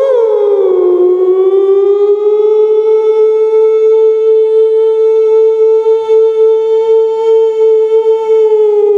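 A beatboxer's voice imitating a siren: one long wail that dips about a second in, then holds steady on one pitch and starts to fall near the end.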